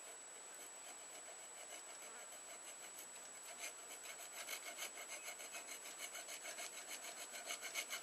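Hand file rasping on a steel knife blade: quick back-and-forth strokes, about three or four a second, starting a few seconds in and growing louder toward the end.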